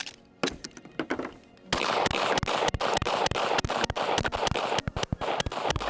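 Gen 3 Glock 17 9mm pistol firing: a few shots in the first second and a half, then a fast string of about five shots a second for roughly four seconds.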